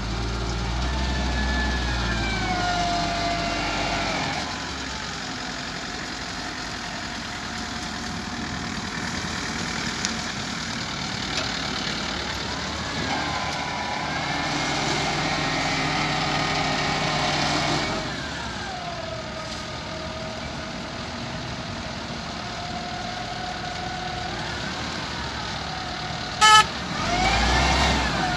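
XCMG LW300KN wheel loader's diesel engine running and revving up and down several times as the loader drives with a loaded bucket and lifts its boom. A short, loud beep sounds near the end.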